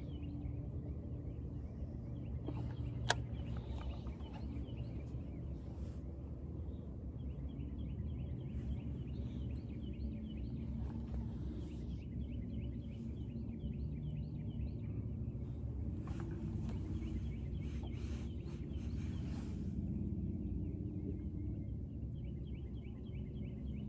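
Outdoor riverside ambience: a steady low rumble with a chorus of rapid, high chirping calls that come and go, and a single sharp click about three seconds in.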